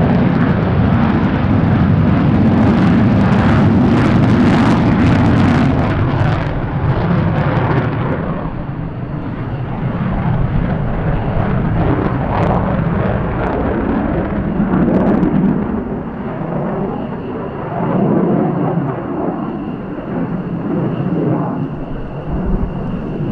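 F-15J Eagle fighters' jet engines, loud and rumbling with a harsh crackle over the first several seconds. The sound then eases to a lower, rising-and-falling rumble, and a steady high whine comes in about two-thirds of the way through.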